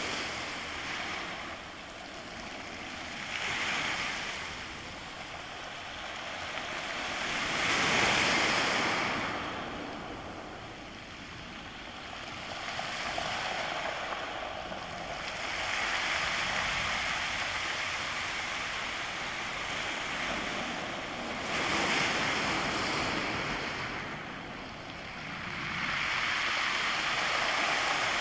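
Sea backwash rolling shoreline stones, a rattling hiss that swells and fades with each wave, one surge every four to six seconds.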